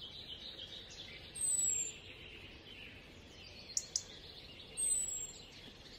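Birds calling in faint outdoor ambience: a high, thin descending call comes twice, about three seconds apart, over a soft chatter of other birds. A couple of brief clicks fall shortly before the second call.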